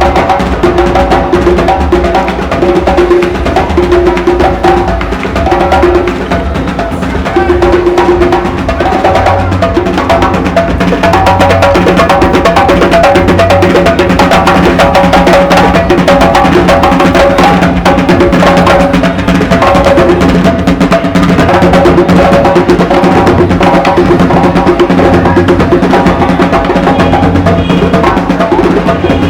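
Music with percussion and a steady beat.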